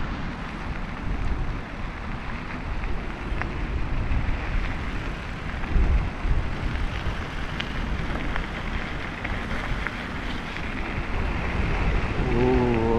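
Wind buffeting the microphone over the steady rush of a flooded river, with a brief voice near the end.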